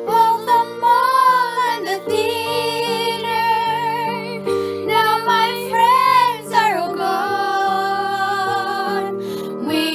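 A child singing a slow ballad melody, holding long notes with vibrato, over a sustained instrumental accompaniment.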